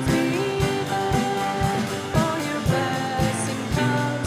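Live worship band music: acoustic guitar, drum kit, piano and electric guitar with a sung melody, over a steady drum beat.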